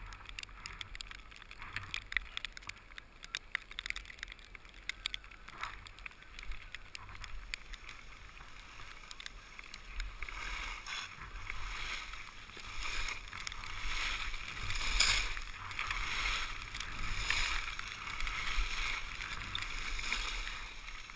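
Skis sliding and turning on snow, heard from a camera on the skier: a scraping hiss with scattered small clicks and taps, which grows louder about halfway through and swells with each turn.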